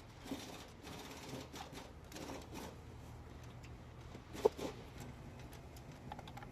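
Hand tools clicking and scraping on the engine as the spark plugs are taken out, with one sharp metallic click about four and a half seconds in, over a faint steady hum.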